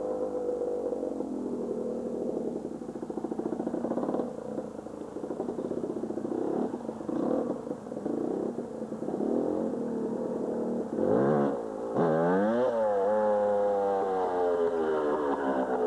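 Yamaha YZ dirt bike engine revving as the bike approaches, the pitch rising and falling. It climbs sharply twice about eleven and twelve seconds in, then holds at high revs as the bike comes close.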